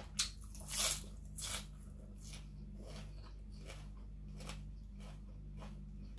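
Close-up mouth sounds of someone chewing a mouthful of fresh leafy greens: a few crisp crunches in the first second and a half, then softer, regular chews. A steady low hum runs underneath.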